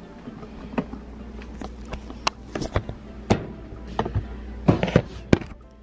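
Irregular knocks and clicks of a handheld camera being moved and handled, over a low steady hum.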